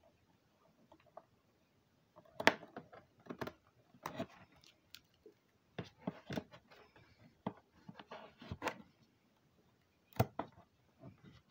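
Scissors snipping and scraping at the packing tape on a cardboard box: an irregular run of sharp snips, scrapes and knocks that starts about two seconds in.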